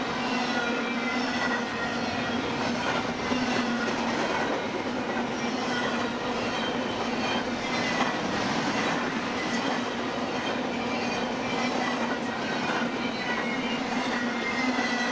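Double-stack intermodal freight cars rolling steadily past on steel wheels, a continuous rumbling rush of wheels on rail. Thin high-pitched wheel squeals drift slightly in pitch over the top.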